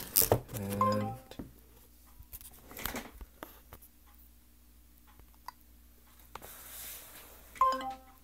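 Cardboard box being handled and slid open, with light scraping, and a short electronic alert tone from a phone near the end: a low-battery warning.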